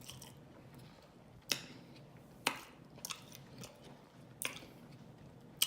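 Close-up mouth sounds of someone chewing fried chicken with cheese sauce: a handful of sharp, wet smacks and clicks, roughly one a second, over quiet chewing.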